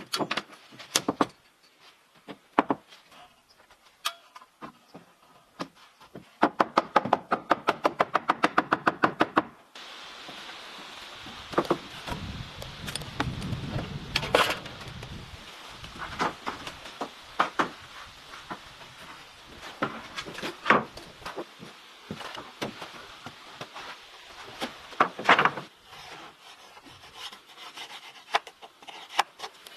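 Hand woodworking on timber: scattered wooden knocks, then a quick run of rasping strokes about six a second, then steady rubbing with occasional knocks.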